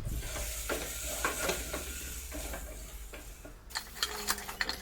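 Spiced onion-tomato masala sizzling in hot oil in a pressure cooker while a spoon stirs it, scraping and tapping against the metal pan. The sizzle cuts off about three and a half seconds in, leaving a few spoon clicks and scrapes; the masala is close to catching, which is why water goes in next.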